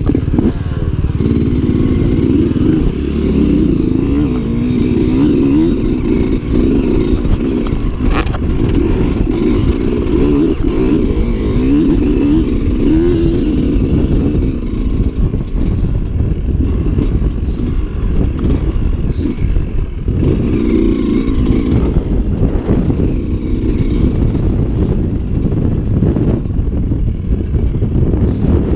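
Dirt bike engine running close to the microphone, its pitch rising and falling several times as the throttle is worked.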